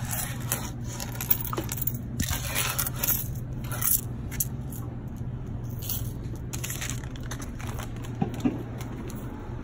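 Loose coins, mostly pennies, scraped off a countertop and clinking in the hand, in irregular bursts with a few sharp clinks and the rustle of handling. A steady low hum runs underneath.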